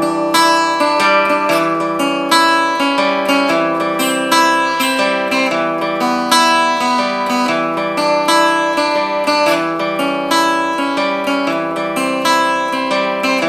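Acoustic guitar strummed in a steady rhythm, playing the instrumental intro of a song before the vocals come in.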